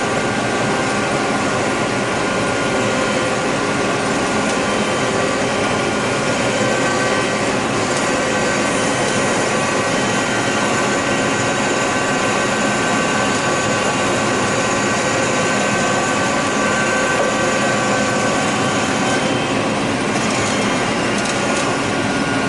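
A John Deere 9600 combine running steadily while harvesting corn. It gives a continuous machine drone with several steady whining tones over a hiss, and the sound does not change.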